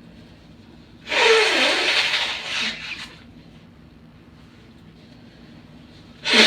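A woman sneezing twice: a loud sneeze about a second in, its short voiced start falling in pitch before a hissing blast, and a second sneeze beginning near the end. These are induced allergy sneezes.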